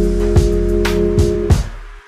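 Background music: held chords over a deep bass with a few drum hits, fading down near the end.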